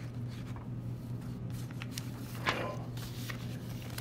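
Room tone with a steady low hum, a few faint clicks and one short rustle about two and a half seconds in.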